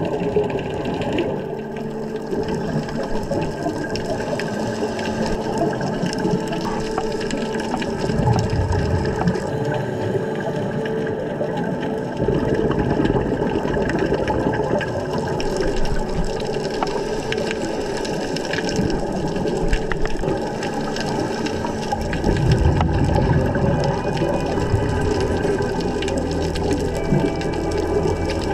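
Underwater sound of scuba divers breathing through their regulators: steady rushing and the bubbling of exhaled air, swelling in surges now and then.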